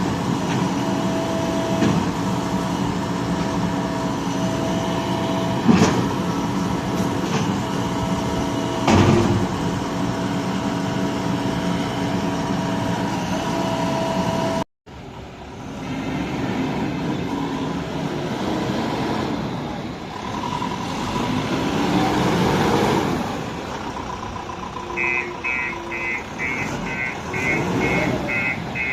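JCB backhoe loader's diesel engine running steadily. After a sudden cut, the engine speed rises and falls, and near the end a rapid electronic beeping starts.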